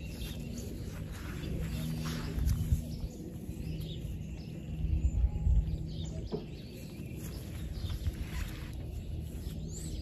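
Pigeon loft ambience: faint bird calls and a few soft knocks over a steady low hum.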